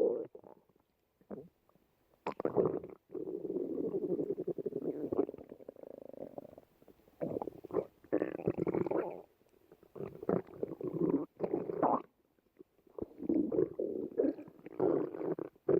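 Stomach growling and rumbling: a string of irregular gurgling rumbles with short gaps between them, one lasting about three and a half seconds.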